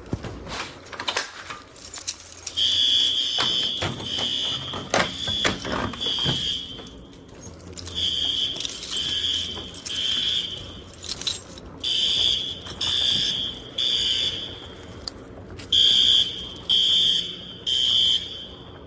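Fire alarm sounders beeping during a system test. Starting about three seconds in, a loud high-pitched tone sounds in groups of three short beeps with a pause between groups: the three-pulse temporal evacuation pattern. Clicks and rattles come in the first few seconds.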